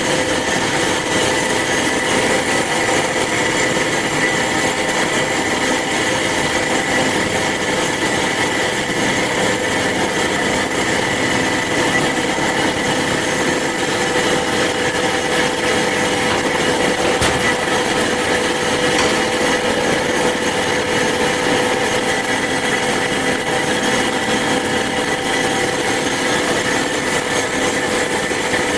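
Band saw running through a cut, its blade freshly coated with graphite: a steady, even machine whine over a sawing hiss.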